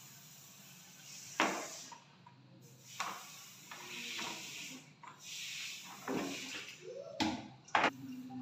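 Kitchen handling noises: a frying pan and potatoes being moved about at the sink and set down on the counter, giving a few sharp knocks and clunks, two close together near the end, with rustling in between.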